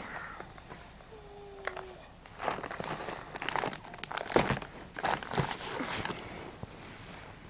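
Plastic packet crinkling in irregular bursts as raisins are shaken out of it into a hand, loudest a little past the middle.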